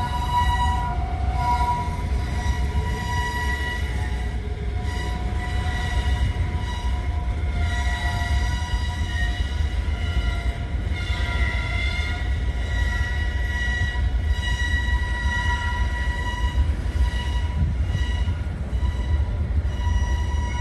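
Freight cars of a heavy manifest train rolling slowly past, a steady low rumble with a sustained, wavering high-pitched squeal of steel wheels running through the whole passage.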